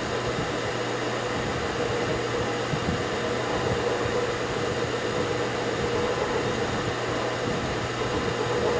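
Milling machine running steadily with its spindle turning a coaxial centring indicator, a constant motor hum and whir with no change, while the workpiece is being centred under the spindle.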